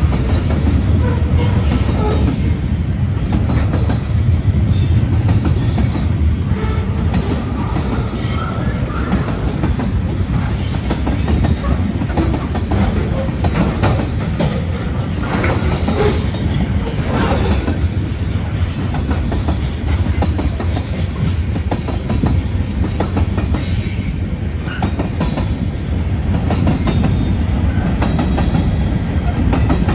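Freight cars of a manifest train rolling past at steady speed, a continuous low rumble with the rhythmic clickety-clack of wheels over rail joints and brief faint wheel squeals now and then.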